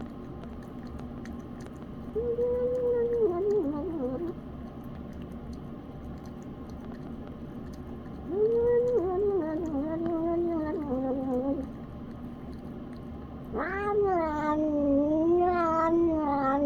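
Elderly cat making funny noises while eating: three drawn-out, wavering yowls a few seconds apart, the last the loudest.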